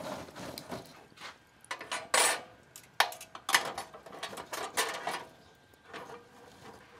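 Dishes and cooking utensils being handled: irregular clinks and knocks, about a dozen separate strikes, loudest about two seconds in and again around three to five seconds in.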